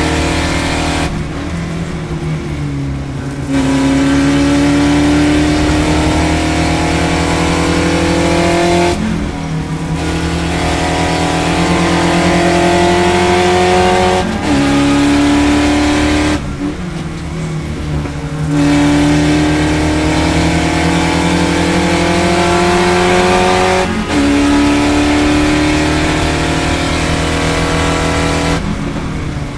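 Spec Racer Ford Gen2's four-cylinder engine heard from inside the open cockpit at race pace. Its pitch climbs through the gears with a quick break at each upshift, and twice it drops back for about two seconds before pulling again.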